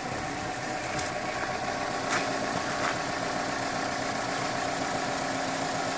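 A car engine idling steadily, with a few faint clicks.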